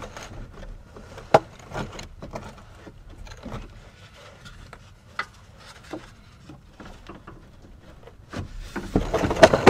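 Scattered knocks, taps and rubbing from hands working at a car's plastic underbody engine cover and its fasteners, mostly faint, with one sharper knock a little over a second in. Near the end a loud, fast run of clicks begins.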